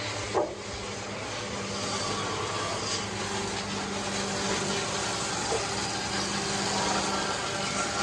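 Machinery running steadily with a constant hum, and a short clunk about half a second in.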